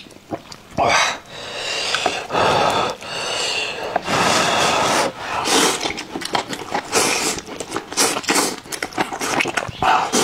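A person slurping noodles in long, loud pulls, three in the first half, then chewing wetly with many short smacks and clicks.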